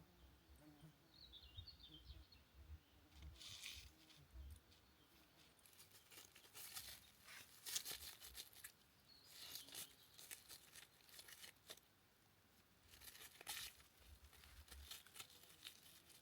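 Near silence, broken by faint, intermittent rustling and crinkling of something being handled, in several short spells, and a brief high bird chirp about a second and a half in.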